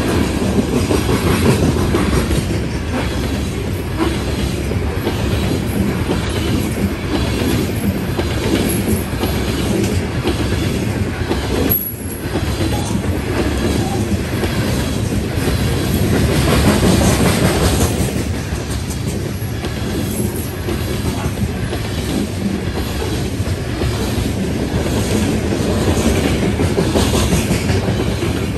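BNSF coal train's gondola cars rolling past at a grade crossing: a continuous low rumble of steel wheels on rail, with frequent wheel clacks.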